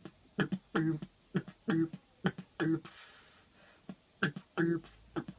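Mouth-made beatbox practice beat of kick drum, rimshot and bongo sound: short sharp clicks alternate with short, pitched, hollow bongo notes in a steady rhythm, about one of each per second. A short hiss comes about three seconds in.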